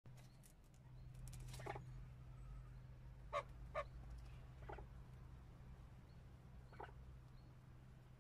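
Chukar partridges giving a few soft, short clucking notes, spaced a second or more apart, the two loudest close together midway. A steady low hum runs underneath.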